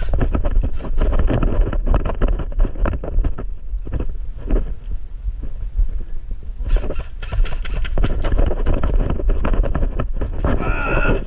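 Running footsteps and gear rattling, close to a body-worn action camera, with a heavy low rumble of wind and handling noise on its microphone. Irregular knocks and clicks come thick and fast, easing off somewhat between about four and six and a half seconds in.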